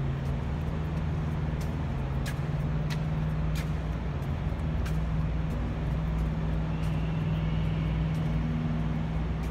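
Steady low mechanical hum held on one pitch, with a few faint ticks in the first half.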